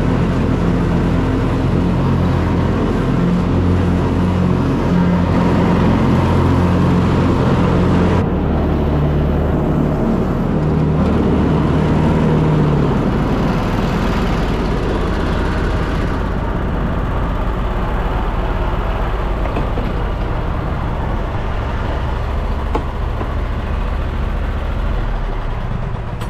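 Lawn mower engine running steadily. Its tone shifts suddenly about eight seconds in and again near the middle.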